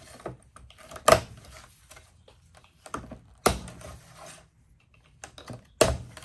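Slip-joint pocketknife cutting through nylon zip ties: a series of sharp clicks and snaps, four of them loud, with lighter ticks in between.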